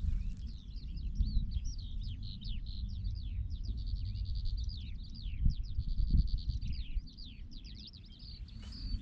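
A songbird singing a continuous, high, rapid warbling song of quick rising and falling notes. Wind buffets the microphone with a low rumble that gusts harder around the middle.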